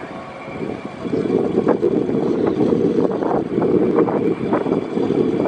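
Rumbling rush of wind on the microphone and the ferry's engines on the open deck of the moving Lake Express high-speed car ferry, getting louder about a second in.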